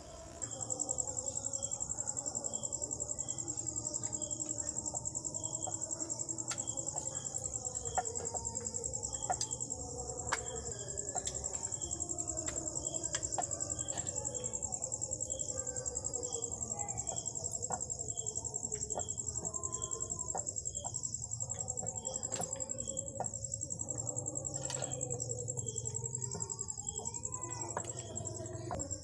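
Crickets trilling in a steady high-pitched drone, with a softer chirp repeating about once a second. Occasional light clicks come from a wooden rolling pin on a rolling board.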